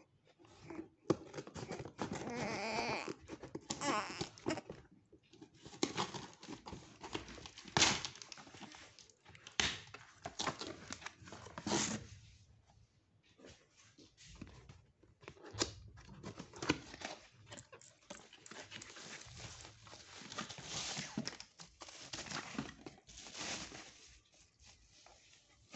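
Cardboard shipping box being cut with scissors and torn open, then plastic and bubble-wrap packaging rustled and crinkled as a small heater is unwrapped, in irregular bursts.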